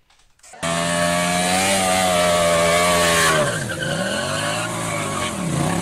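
Sport motorcycle engine held at high revs during a burnout, over the hiss of the spinning rear tyre. It starts about half a second in, and the revs dip and climb back twice in the second half.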